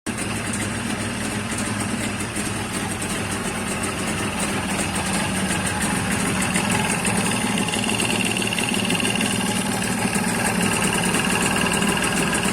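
Jawa 638 Lux's two-stroke twin engine running with a ringing knock in the cylinder, which the owner first took for piston skirt slap. A higher ringing tone joins about halfway through.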